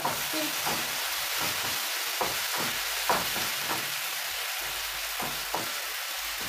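Tomato and onion sauce base sizzling in a frying pan while a spoon stirs it, with irregular scrapes and knocks of the spoon against the pan, the sharpest about three seconds in.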